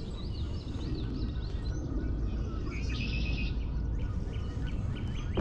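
Wild birds calling: quick repeated chirps, then a short burst of song about three seconds in, over a steady low rumbling background.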